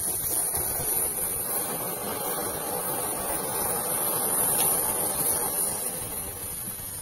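Anar (flower-pot fountain firework) burning, spraying sparks with a steady rushing hiss that swells to its loudest about halfway through and eases slightly near the end.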